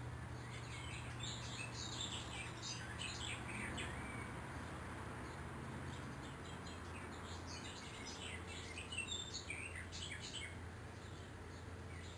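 Small birds chirping in quick runs of short high notes, in two spells, over a steady low hum.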